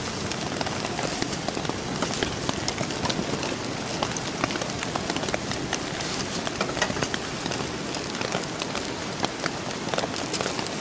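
Steady rain pattering on a poncho shelter overhead, mixed with the small ticks and pops of wet split wood burning in a small wood stove.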